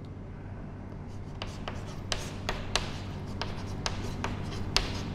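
Handwriting strokes: a scatter of short taps and scratches from a pen or marker as something is written out, over a faint steady low hum.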